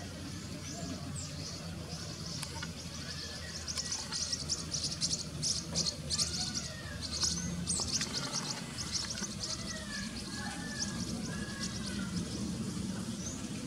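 Birds chirping and whistling, with a dense run of rapid high-pitched calls from about four to eight seconds in, over a faint low steady hum.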